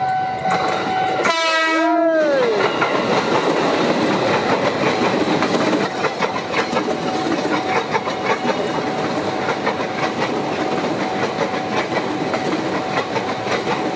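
KRL commuter electric train passing close by. About a second in, its horn sounds for about a second and slides down in pitch as it stops. Then the wheels clatter over the rails in rapid clicks as the cars roll past.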